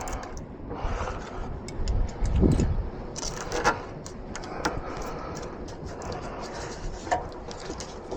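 Scattered metallic clicks and light scraping of hand tools working on a van's battery terminal, with a low thump about two and a half seconds in.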